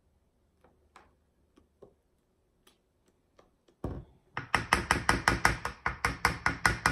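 A spatula knocking rapidly against metal hand-mixer beaters and a stainless steel mixing bowl, about six or seven sharp taps a second, starting about four seconds in after a few faint clicks.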